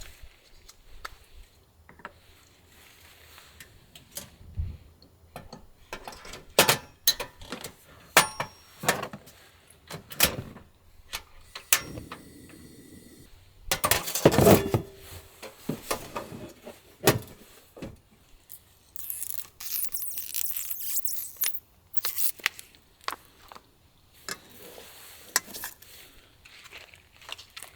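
Scattered clinks, knocks and clatters of cooking gear and utensils being handled, with a few short stretches of rustling or scraping in between.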